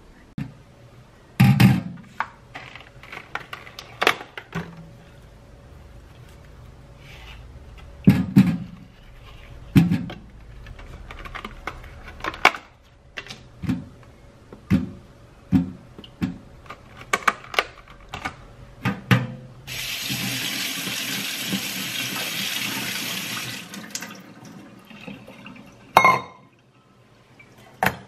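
Berries and plastic punnets being handled over a stainless steel kitchen sink, with a run of knocks and clatters. A tap runs into the steel sink for about four seconds and shuts off, and a sharp knock comes near the end.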